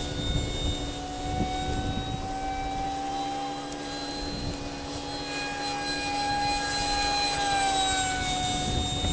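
Electric ducted fan of a Kyosho Panavia Tornado RC model jet (EDF-55 unit) whining steadily, its pitch rising gently for several seconds and then easing back down near the end.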